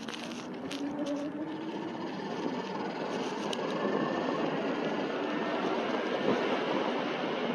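A motorbike riding down a street, heard from the rider's seat: wind and road noise that grow steadily louder as it picks up speed, with the engine's faint note rising in the first second or so.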